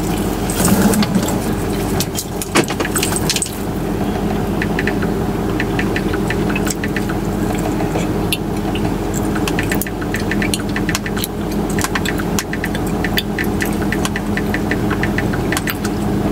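Car engine idling, a steady low hum inside the cabin, with light irregular clicks from fingers tapping on a phone screen.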